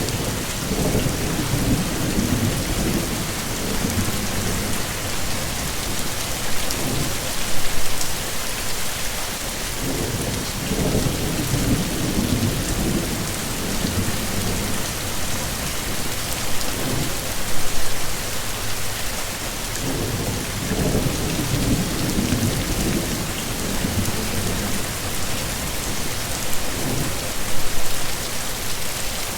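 Heavy rain pouring steadily, with low rolling thunder rumbling in and fading away about every ten seconds.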